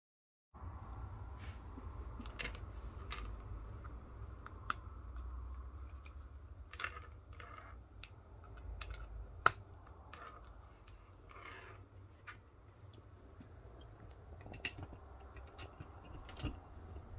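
Scattered small plastic clicks and rattles from an Aneng 681 multimeter in its rubber holster and a USB-C charging cable being handled and plugged in, with one sharper click near the middle, over a low steady room hum.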